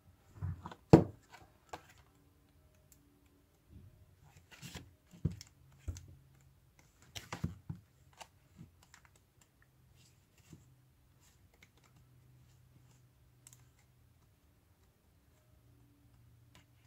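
Sheets of a paper pad being leafed through and handled by hand: a scatter of sharp clicks, taps and paper rustles over the first eight seconds or so, then only a few faint ticks over a faint low hum.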